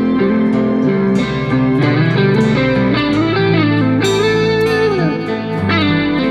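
Background music with electric guitar playing a melody, with bends and slides, over a steady bass line.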